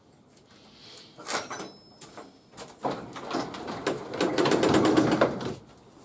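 Up-and-over garage door being raised: a few knocks and clatters, then a loud rattling run of about a second and a half near the end as it rolls open on its tracks.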